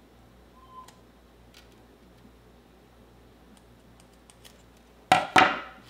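Scissors snipping the tag ends of monofilament fishing line, a few faint small clicks, then two loud clunks close together near the end as the scissors are put down on the table.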